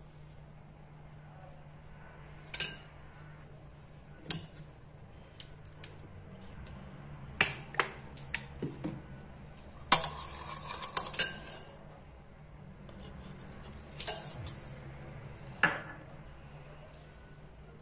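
Metal spoon clinking and scraping against a glass bowl as spoonfuls of yogurt and ginger-garlic paste go in: scattered sharp clinks, with a busier run of taps and scraping about midway. A faint steady low hum lies underneath.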